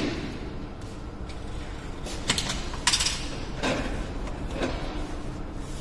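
Vinyl floor sheet being handled and slid over the floor: four short scraping swishes, each under a second apart, in the second half.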